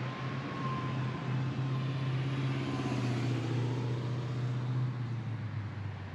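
Road traffic: cars driving past on a busy road, a steady low engine hum under a wash of tyre and road noise.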